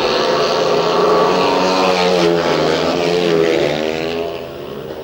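Several 500 cc single-cylinder speedway bikes racing together, their overlapping engine notes dipping and climbing in pitch as the riders work the throttle through the bends. The sound eases off a little near the end.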